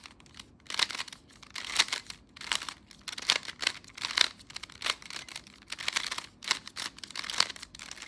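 Plastic Rubik's Cube layers being turned by hand in a quick run of moves, a string of short rattling clacks several a second with brief pauses between groups of turns.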